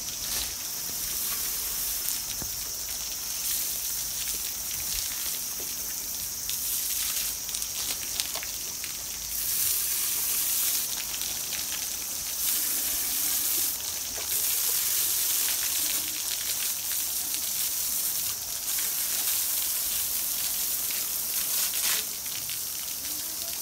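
A water hose jet spraying over elephants, making a steady hissing spray with water spattering onto their hides and the wet ground. It grows louder for a few stretches in the second half.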